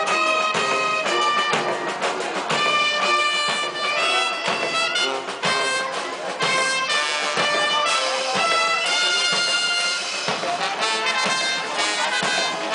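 Brass band playing, trumpets and trombones holding notes over a steady drum beat.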